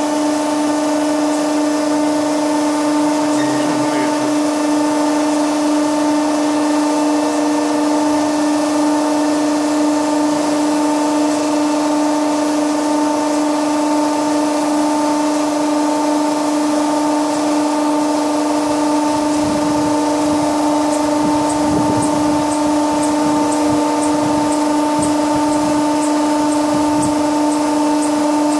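Hydraulic servo actuator test rig running a high-frequency cycle, about 200 Hz at 50 kN: a loud, steady hum with a strong constant pitch over a hissing background. Faint high ticks come about twice a second in the last several seconds.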